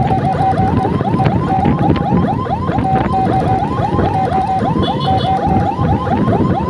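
Electronic emergency siren sounding a fast yelp of rising sweeps, about four a second, broken by stretches of a steady tone, over scooter engine and road noise.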